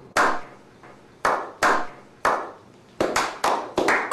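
A slow clap by a small group: single hand claps with a short echoing tail, about a second apart at first, then quickening about three seconds in into faster, building applause.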